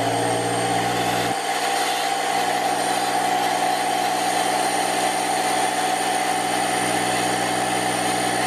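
Parkside PKZ 180 C5 tankless piston air compressor, with an 1100 W electric motor, running loud and steady just after being switched on: a mechanical hum with a thin high whine. It is quite noisy.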